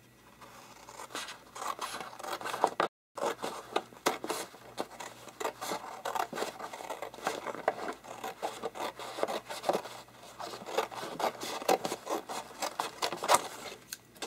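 Scissors cutting through posterboard in a long run of short snips. The sound drops out completely for a moment about three seconds in.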